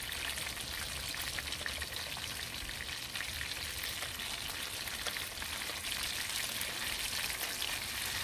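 Banga Mary fish frying in hot oil in a pot: a steady sizzle with small scattered crackles.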